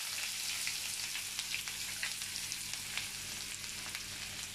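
Freshly added chopped onions frying in hot oil with mustard seeds, cumin and curry leaves in a frying pan: a steady sizzling hiss with many small crackles.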